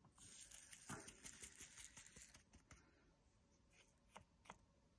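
Faint patter of resin diamond-painting drills being shaken out of a bag into a small plastic storage pot, followed by a few light plastic clicks.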